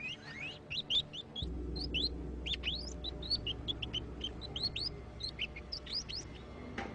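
Rats squeaking: many rapid, short, high squeaks that fall in pitch, over a low musical drone that comes in about a second and a half in.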